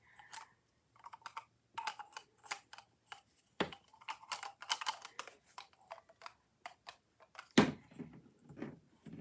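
Small toy food pieces clicking and rattling in a plastic cup and against a toy blender as they are handled. Louder knocks come about three and a half and seven and a half seconds in, the second as the cup is set down on the table.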